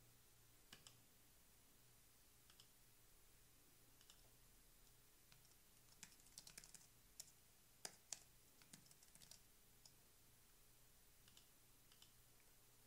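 Faint computer keyboard typing and mouse clicks: scattered soft key taps, with quick runs of them about six to seven seconds in and again around eight to nine seconds, over a faint low hum.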